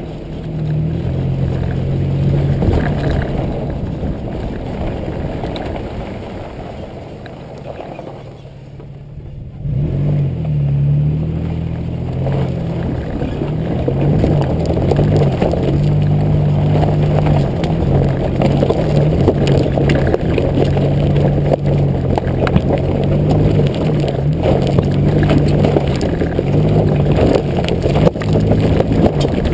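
A 2005 Nissan Xterra's 4.0 L V6 engine and exhaust, heard close up from low at the rear, pulling along a dirt track. The revs rise and fall over a rough rumble of tyres and chassis. The sound drops away briefly about eight seconds in, then picks up again.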